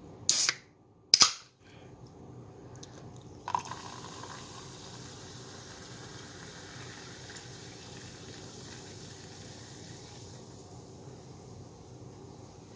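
Soda opened with two short sharp hisses of escaping gas. About three and a half seconds in, the soda starts pouring into a glass of crushed watermelon and ice, and it fizzes steadily.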